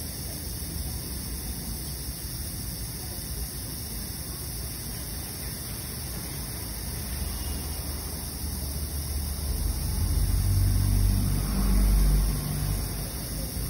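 Continuous steady hiss of a SABALON 420 mL aerosol hair-spray can held open in a spray-duration test. A low rumble swells and fades near the end.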